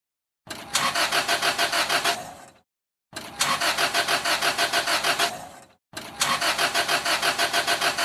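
Car engine cranked by its starter motor three times in a row. Each attempt opens with a click and then runs at a fast, even pulse of about seven beats a second before dying away, and the engine never fires: a car that cranks but won't start.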